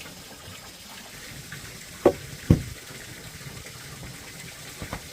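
Steady running or pouring water, with two loud knocks about half a second apart a couple of seconds in and a fainter knock near the end.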